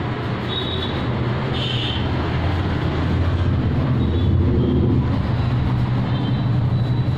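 Steady low mechanical rumble with a constant hum, growing somewhat louder about three seconds in, with a few brief high-pitched squeaks.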